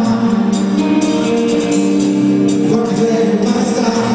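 A band playing live: long held notes over drums, with cymbal hits about once a second.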